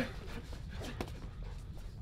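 Blows landing in a fistfight: two sharp smacks about a second apart over a low hum.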